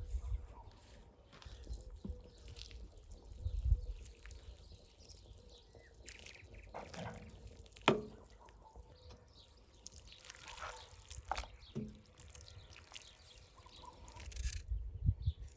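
Shredded cabbage sliding off a wooden board into a large cast-iron pan of borscht broth, then a spatula stirring the soup, with liquid dripping and splashing. One sharp knock a little before the middle is the loudest sound, with a few low bumps around it.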